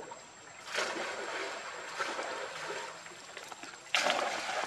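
A monkey swimming, paddling and splashing through water, with a louder splash near the end.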